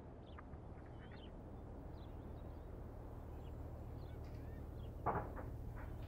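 Scattered bird chirps and calls over a low steady hum, with one louder call about five seconds in.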